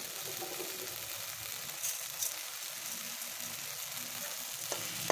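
Grated cassava sizzling steadily in a hot metal pan, with a short tap near the end.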